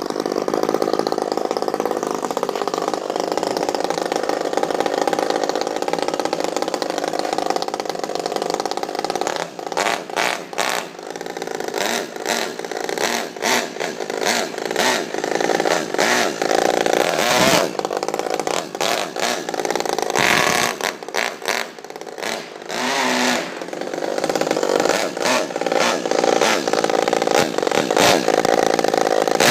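Modified Saito FA-50 four-stroke glow engine in a nitro RC car running and revving, its note rising and falling with repeated throttle blips and brief drops off the throttle.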